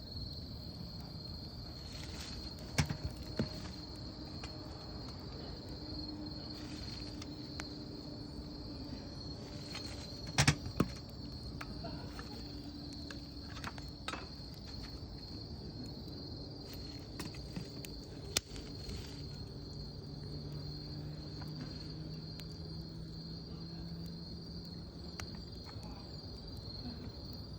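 Campfire wood burning, giving a handful of sharp pops and cracks, the loudest about ten seconds in, over a steady pulsing chirr of insects such as crickets.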